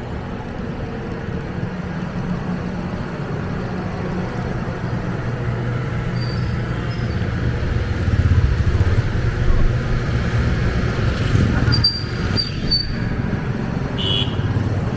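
Road traffic: vehicle engines running as a steady low hum, growing louder as a vehicle passes partway through. A few short high squeaks sound near the end.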